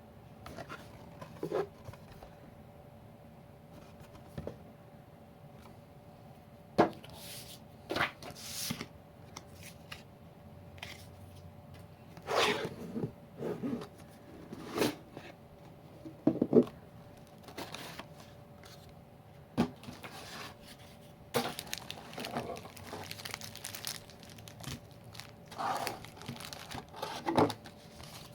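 Packaging being torn open and crinkled by hand, the wrapping of a Magic: The Gathering fat pack and its booster packs. It comes as irregular bursts of tearing and rustling with a few sharp clicks.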